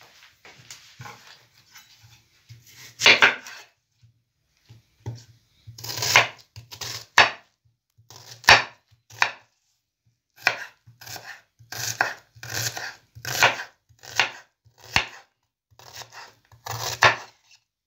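Chef's knife cutting and dicing an onion on a wooden cutting board. One strong cut about three seconds in, then repeated knife strikes on the board from about five seconds on, settling to a steady chopping of about three strokes every two seconds.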